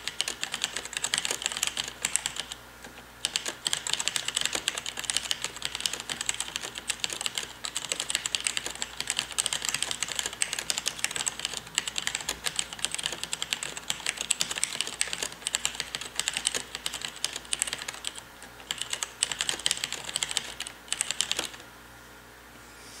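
Fast typing, about 103 words per minute, on a KBC Poker compact mechanical keyboard with Cherry MX Red linear switches and PBT keycaps: a dense, rapid stream of key clacks, the light keys often bottoming out. The typing pauses briefly a couple of times and stops a little before the end.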